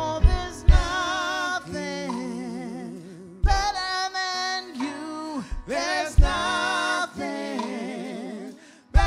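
Live gospel worship music: female voices singing long, wavering notes over a keyboard, with a few low drum hits.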